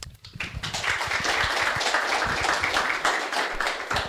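Audience applauding, the clapping starting about half a second in.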